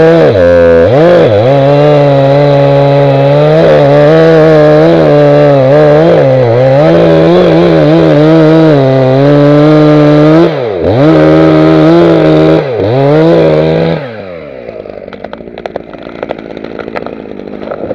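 Holzfforma G366 two-stroke chainsaw running at high revs while cutting into a birch trunk. Its pitch sags and recovers several times as the chain bites, and it is fitted with a standard 15-inch bar and a Stihl MS361 chain that let it cut at full power. About fourteen seconds in the saw sound stops and a much quieter crackling follows.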